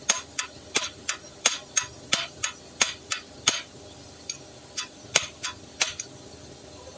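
Hand tool tapping on metal at a Toyota Land Cruiser's front wheel hub: a run of sharp taps, about three a second, that stops about six seconds in.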